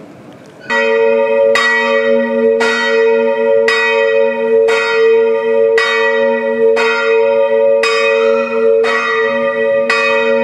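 Church tower bell tolling about once a second, starting about half a second in, each stroke still ringing as the next one lands.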